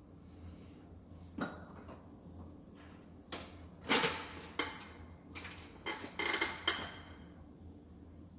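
A run of knocks, clatters and short scrapes from things being handled and set down, mostly between about three and seven seconds in, over a low steady hum.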